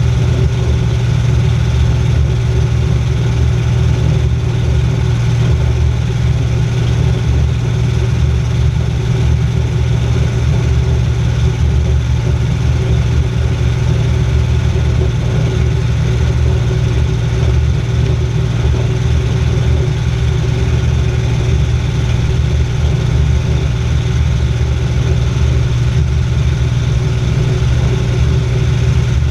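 Light float plane's engine and propeller running steadily, heard from inside the cabin: an even, unchanging low drone.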